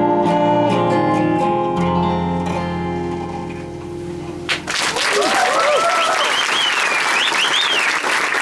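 Final guitar chord ringing out and fading away, then, about four and a half seconds in, an audience breaking into applause and cheering.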